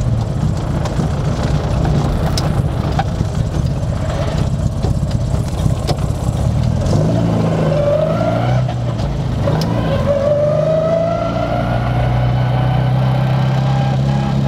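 Classic Mini's A-series four-cylinder engine and drivetrain running loudly, heard from inside the cabin while driving. Partway through a whine rises as the car picks up speed, breaks off, then rises again.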